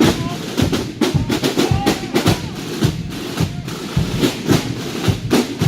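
Military band drums, snare and bass, playing a fast drum passage of dense, sharp strokes and rolls.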